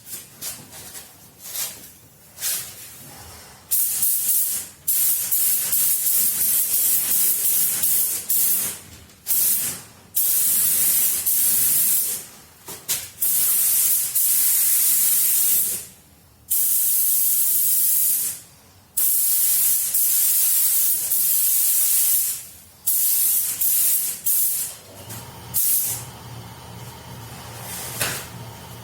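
Compressed-air paint spray gun hissing as paint is sprayed, in passes of one to four seconds with short breaks between. A low steady hum comes in near the end.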